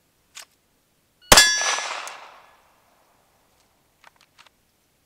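A single 9mm shot from a Glock 19X pistol fired on the draw, with the ringing clang of a struck steel target fading over about a second. A few faint clicks follow near the end.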